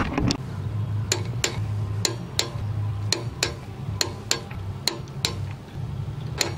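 Socket ratchet clicking as it runs down the bolts of a lightweight flywheel: a series of sharp metallic clicks, roughly two or three a second, each with a short ring.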